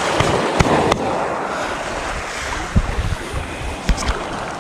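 Small waves washing over a pebble shore with water splashing around a hand in the shallows, and a few sharp knocks.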